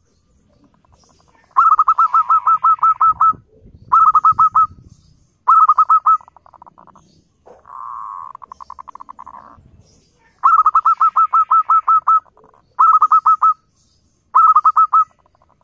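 Zebra dove (perkutut) singing: bursts of rapid, staccato cooing notes, seven phrases in all, one of them a lower, smoother rolling trill near the middle.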